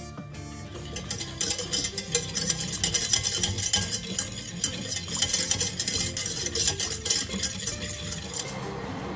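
A wire whisk stirring thin teriyaki sauce in a stainless steel saucepan, its wires rattling and scraping rapidly against the pan's metal sides. The whisking starts about a second in and stops shortly before the end.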